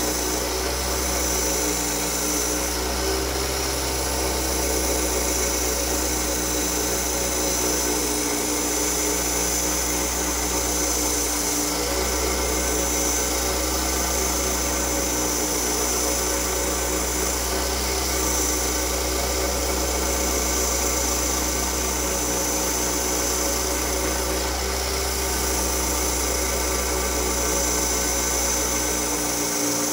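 Diamond Laser Speedster XL wet band saw running steadily, its diamond blade cutting through a thick cut-glass ashtray. A steady motor hum with a high whine over it, unbroken throughout.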